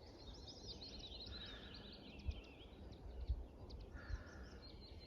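Small birds chirping and trilling, faint and almost continuous, over a low steady outdoor rumble, with two soft low thumps in the middle.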